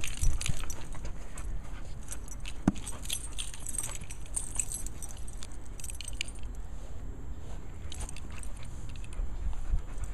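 A dog's metal chain collar jingling in light, scattered bursts as the boxer moves about.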